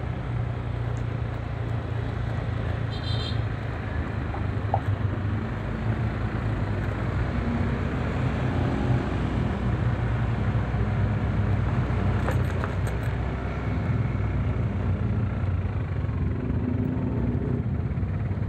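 Motor scooter being ridden: a steady rush of wind on the microphone with the engine running underneath.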